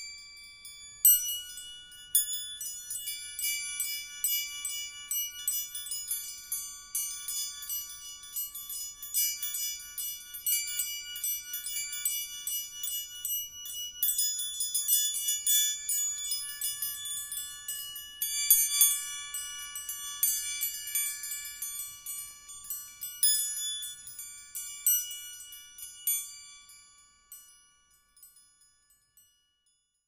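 Three hammered metal plate chimes of a door chime set, tuned to D, F sharp and A (a D major chord), struck over and over in quick clusters so that their tones ring together. The ringing dies away near the end.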